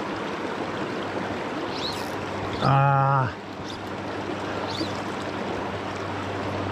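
River water running steadily over a shallow run, an even rush. About three seconds in, a man lets out a short 'Ah'.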